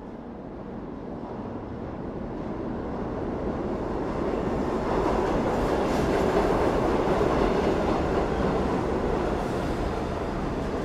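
O scale two-rail model passenger train rolling along the layout's track, a steady rumble of wheels on rail. It grows louder as the train passes close, loudest about halfway through, then eases a little.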